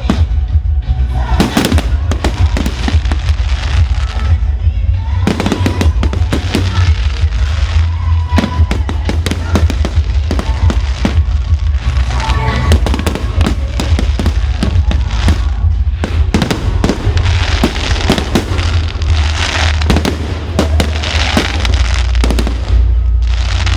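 Fireworks display: a dense run of bangs and crackling bursts over a heavy low rumble, with music playing along.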